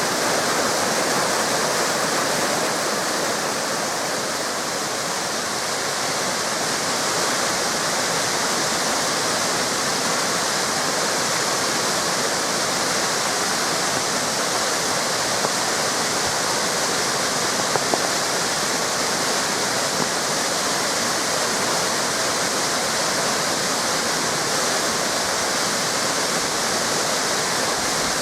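Waterfall cascades and river water rushing steadily.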